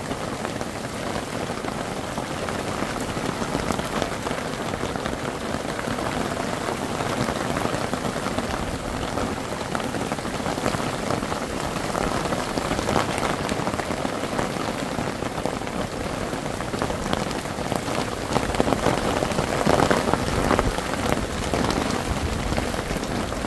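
Heavy rain pouring steadily, a dense patter of drops striking the ground and nearby surfaces, getting a little louder as it goes on.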